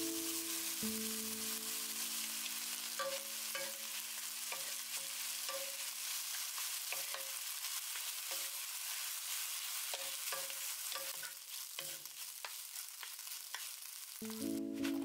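Rice, egg and cup noodles sizzling in a nonstick frying pan as they are stir-fried, with wooden spatulas scraping and tapping against the pan from about three seconds in.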